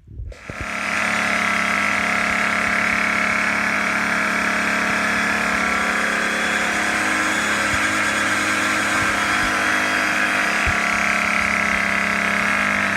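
Troy-bilt TB35EC string trimmer's two-stroke engine catching on the pull about half a second in, then running steadily. It starts now that the jump-start seal and cover have been replaced.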